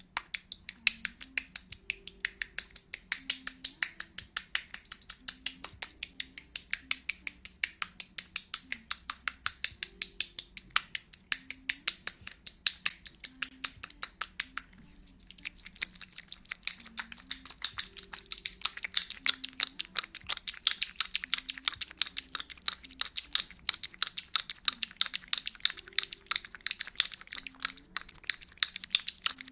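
Close-miked ASMR tongue clicking: rapid, crisp mouth clicks several a second, with a brief pause about halfway before they resume more densely.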